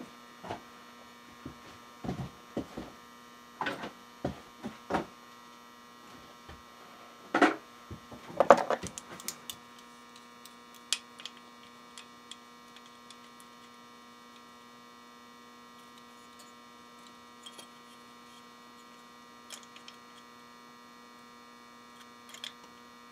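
Steady electrical mains hum under scattered light clicks and taps of small screws, a transistor and an aluminium heat sink being handled and fastened. A brief cluster of louder knocks comes about a third of the way in.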